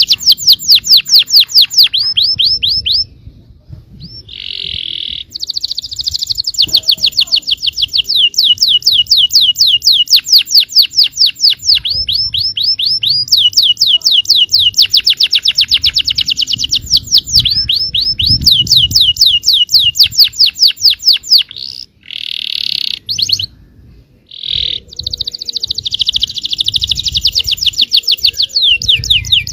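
Yellow domestic canary singing long rolling trills of fast repeated notes, about ten a second, each run at a different pitch. The runs are broken by a few short buzzy notes and two brief pauses.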